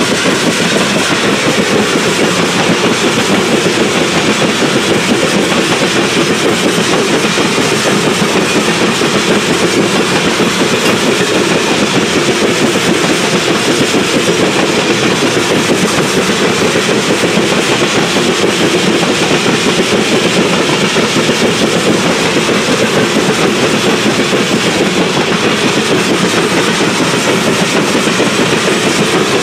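Freight train of tank cars rolling through a grade crossing: steady, loud noise of steel wheels on the rails with a clickety-clack over the rail joints.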